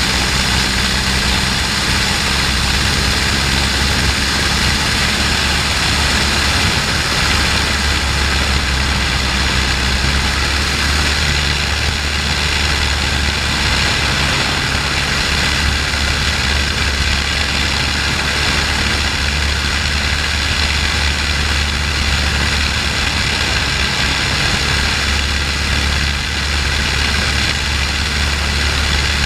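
de Havilland Tiger Moth's Gipsy Major four-cylinder engine running at take-off power, heard from on board with the propeller and wind rush, steady and loud through the take-off run and climb-out.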